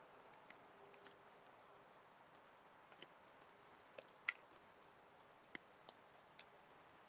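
Near silence with faint, irregular clicks and ticks, the loudest a little past four seconds in: magpies and crows pecking at food in a feeding bowl.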